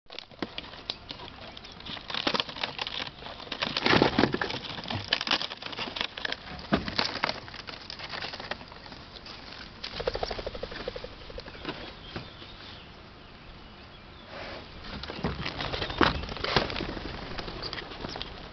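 Released pheasants flapping their wings in bursts as they flush from opened transport crates and fly off, with scattered knocks and rustles.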